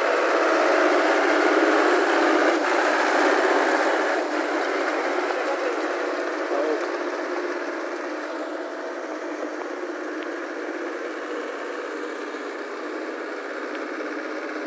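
Swaraj 855 tractor's diesel engine running as the tractor churns through deep mud on cage wheels, loudest in the first few seconds and then quieter.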